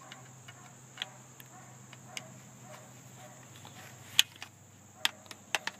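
Screwdriver working a small steel screw out of a wet/dry shop vac's electric motor: scattered metallic clicks and taps, the sharpest about four seconds in and a few more near the end.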